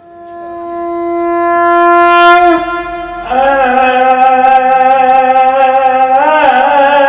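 A long steady held note swells in loudness for about two and a half seconds. From about three seconds in a man sings a long sustained note with a wavering vibrato, the drawn-out opening of a Gujarati folk duha-chhand recital.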